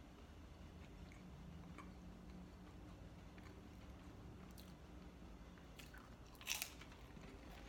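A square saltine cracker bitten and chewed, with small crunches and one sharp, loud crunch about six and a half seconds in. Under it runs a faint low hum.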